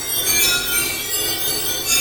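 Generative sound-art music: a dense cloud of many high, piano-like notes sounding over and into one another, each note standing for one point of a white porcelain jar's image.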